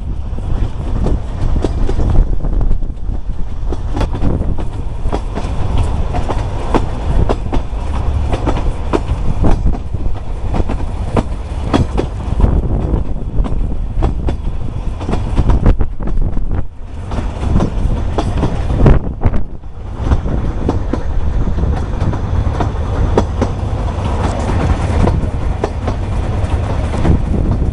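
Narrow-gauge passenger carriage running along the track: a steady heavy rumble from the wheels, with irregular clicks and clatter as they pass over the rail joints.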